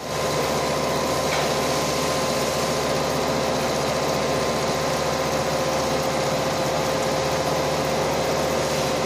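Butler-Elga mill's milling head facing aluminium: a steady machining sound with a constant hum as the cutter peels off chips.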